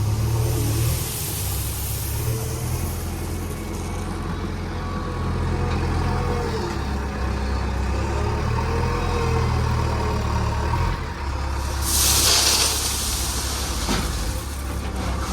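Diesel engine of a JCB 3DX backhoe loader running while it works, with a whine that rises and falls in pitch. A loud hiss comes about twelve seconds in.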